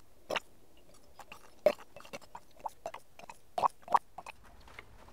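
Faint, irregular wet clicks and squelches, with a few louder ones near the middle and later on, from tools working in the transmission fluid that fills the open cylinders of a seized engine block.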